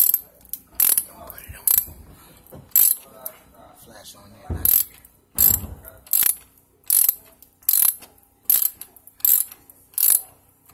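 Ratchet wrench clicking in repeated back-and-forth strokes, about thirteen of them at roughly one every three-quarters of a second, as it tightens the stainless steel band clamp of a rubber coupling joining PVC pipe to cast iron pipe.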